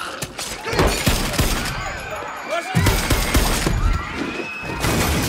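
Movie fight sound effects: a rapid series of blows, thuds and crashes with glass shattering, over a film score.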